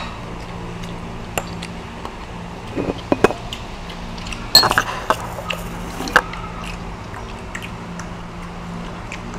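Metal spoon and dishes clinking on the table during a meal: a few sharp clicks about three seconds in and a louder cluster of clatters between about four and a half and six seconds. A steady low hum runs underneath.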